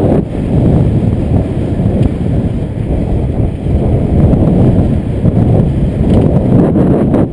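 Wind buffeting the microphone of a bike-mounted camera on a road bike moving at speed, a loud, gusty low rumble that rises and falls, with a few light clicks near the end.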